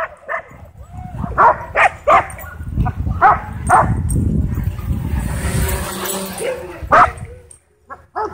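Dogs barking excitedly in short, sharp barks at a drone flying low over them, with a low rumble underneath the barks in the middle.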